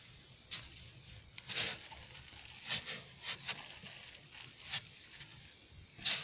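A hand digging and rummaging through damp vermicompost in a worm bin: several short, separate rustles and crumbles, with a faint low background hum.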